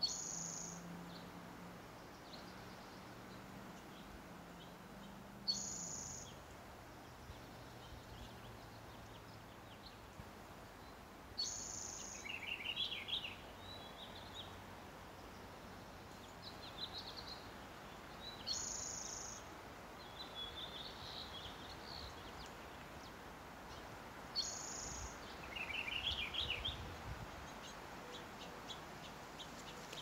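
Small songbirds singing over a steady background hiss. One bird repeats a short, high phrase about every six seconds, and softer, lower trilled phrases come in between.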